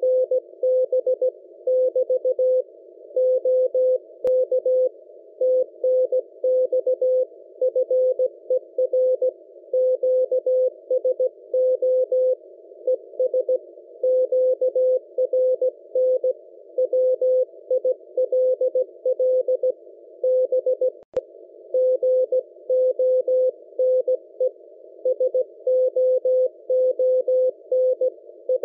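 Morse code (CW) signal on the 600-metre amateur band, received on a software-defined radio: a steady tone of about 500 Hz keyed on and off in dots and dashes, over a band of hiss narrowed by the receiver's CW filter.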